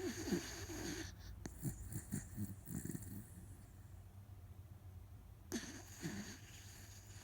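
Miniature dachshund snoring loudly in deep sleep. A long wheezy snore breath is followed by a run of short snorts, then after a quieter pause another snore breath comes near the end.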